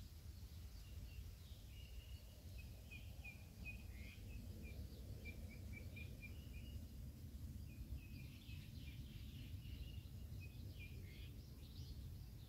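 Faint birds chirping outdoors in short, quick high notes, in two runs with a brief lull about seven seconds in, over a steady low rumble of background noise.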